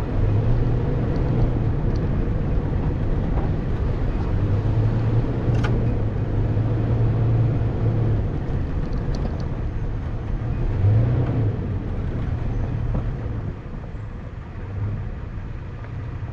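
Toyota FJ Cruiser's 4.0-litre V6 running steadily as the truck drives a rocky off-road trail, with rolling noise underneath and a few sharp clicks.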